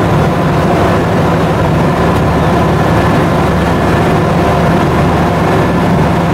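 Engine of a WWII-era DUKW amphibious duck boat running steadily as the boat cruises afloat, with a low, even drone.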